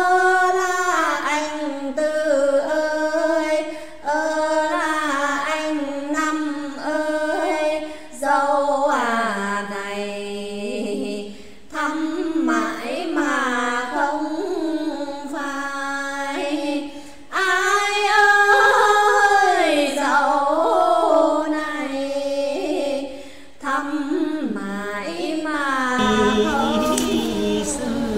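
Two women singing a Quan họ folk song as a duet, unaccompanied, in long held notes that bend and slide between pitches, with short breaks for breath between phrases.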